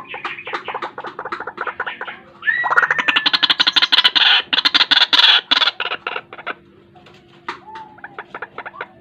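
White-breasted waterhen calling: fast runs of harsh, repeated notes that build about two and a half seconds in to a loud, dense stretch lasting some three seconds, then thin out to scattered notes.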